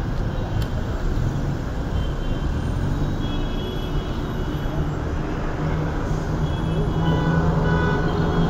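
Slow-moving city street traffic: cars and vans passing close by with a steady rumble of engines and tyres. A low engine hum grows a little louder near the end.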